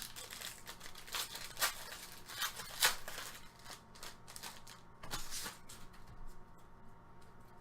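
Trading cards handled and flipped through by hand: quick crisp slides and rustles, busiest in the first three seconds and tapering off after about six seconds.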